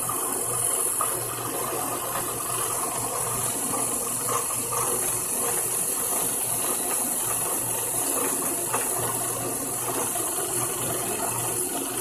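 TU-2A CNC training lathe running through its program, a steady mechanical whirr and gear noise over a low hum that drops out and returns every second or two.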